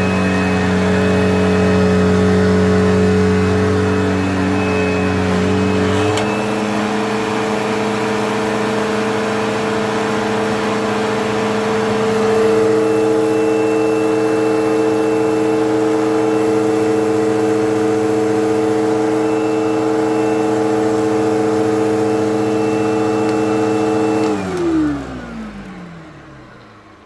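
Upright vacuum cleaner motor running steadily with a humming whine, its tone changing about six seconds in. Near the end it is switched off and the pitch falls away as the motor spins down.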